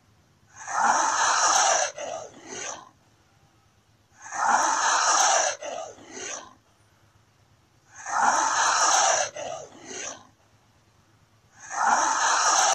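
Komodo dragon hissing: a long hiss of about a second and a half, then a shorter one, the pair repeating roughly every four seconds.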